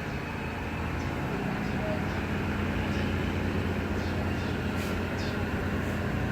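Train running at a railway halt, a steady low engine hum over rumbling noise.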